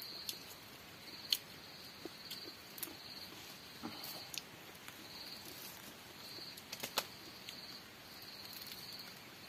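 An insect trilling at a steady high pitch in spells about a second long, one after another, with a few scattered sharp clicks.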